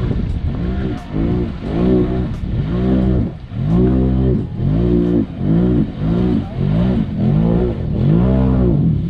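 Off-road vehicle engine revved up and down over and over, about twice a second, each rev rising and falling in pitch.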